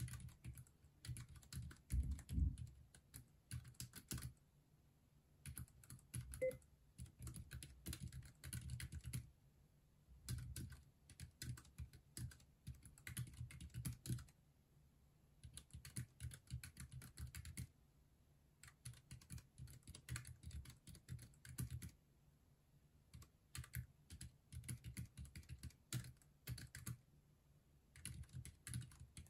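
Keychron K3 low-profile mechanical keyboard with black switches being typed on quickly. The key clicks come in runs of a second or two with short pauses between.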